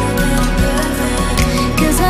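Background music: an instrumental stretch of a song, with held notes over a steady accompaniment.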